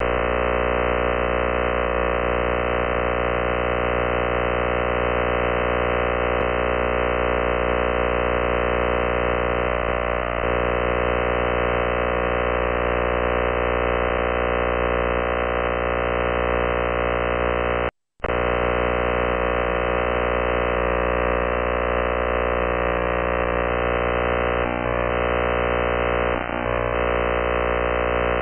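Unidentified radio-frequency interference heard through a shortwave receiver tuned to 1723 kHz: a steady buzz made of many evenly spaced tones. It cuts out for a moment about eighteen seconds in.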